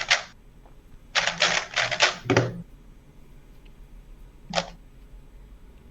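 Rapid plastic clacking of a speedcube being turned: a quick run of about six clacks a little after one second in, then a single click about four and a half seconds in.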